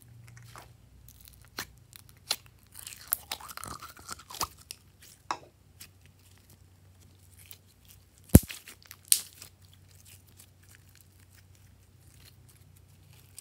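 Hands squishing and stretching gold glitter slime: scattered sticky crackles and small pops, busiest about three to four seconds in, with two sharp clicks around eight and nine seconds in.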